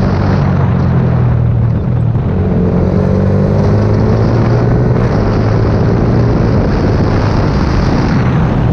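Yamaha R15 V4's single-cylinder engine running through an aftermarket full-system exhaust as the bike is ridden, a steady note whose pitch rises and falls a little with the throttle.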